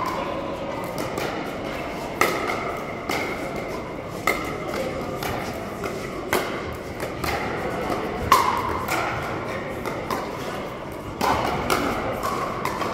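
Pickleball paddles striking a hard plastic ball during a rally: sharp pops about once a second, irregularly spaced, the loudest about eight seconds in, with hits from neighbouring courts over a background of voices in a large indoor hall.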